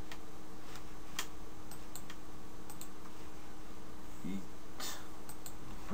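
Scattered computer mouse clicks and keystrokes, about a dozen irregularly spaced sharp clicks, over a faint steady electrical hum.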